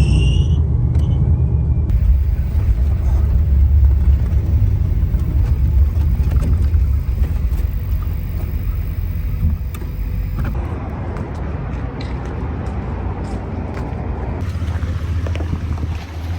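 RV engine running with a steady low rumble, as when driving. It gets somewhat quieter about ten seconds in.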